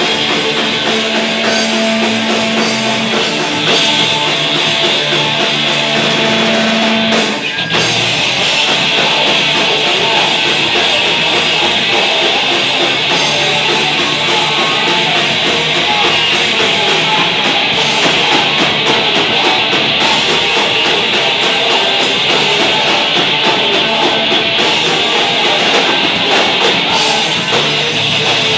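A live heavy rock band plays an instrumental passage on electric guitars and drum kit. A note is held for the first several seconds. The band cuts out for a split second about seven seconds in, then comes back in at full volume.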